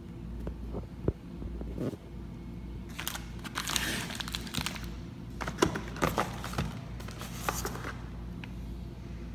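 Cardboard toy box handled by hand: rustling and scraping with small knocks, in two spells, about three seconds in and again around six seconds in, over a steady low hum.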